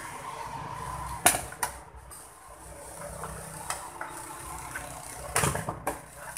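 Sharp clicks and knocks of small circuit boards and tools being handled on a wooden workbench, the loudest about a second in and a cluster near the end, over a steady background hiss.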